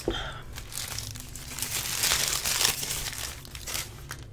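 Paper wrapper of a McDonald's cheeseburger being crinkled and pulled open, loudest about two seconds in. A brief knock comes right at the start.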